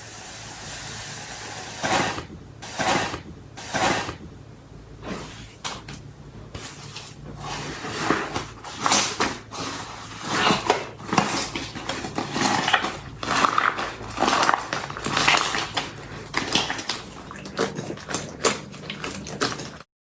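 Slime being squished and pressed by hand: a run of wet squelches and pops, spaced about a second apart at first, then coming quicker and denser. It cuts off suddenly just before the end.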